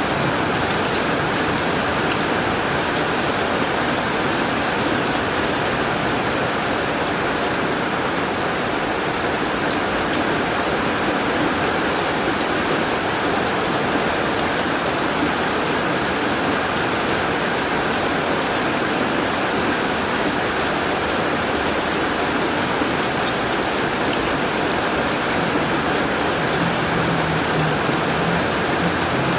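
Heavy rain falling steadily on a tin roof.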